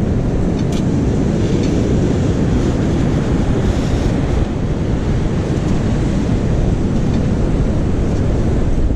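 Wind buffeting the microphone over the steady wash of surf on a beach, with a brief click just under a second in.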